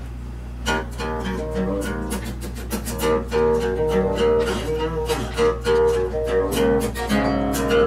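Acoustic guitar played with a pick: quick picked notes and chords, with one note ringing steadily over them from about three seconds in.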